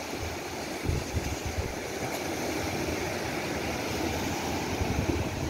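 Sea surf washing onto a sandy beach as a steady wash, with louder low rumbles about a second in and again near the end.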